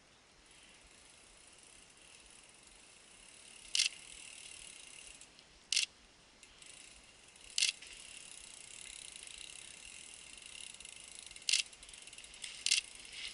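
Mountain bike coming down a dirt trail, its rear hub's freewheel ratcheting as it coasts, slowly growing louder as it approaches. About five short, sharp bursts of louder buzzing stand out along the way.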